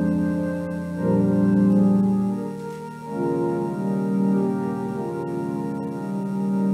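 Organ playing a slow service prelude: sustained chords held for a second or two each before moving to the next.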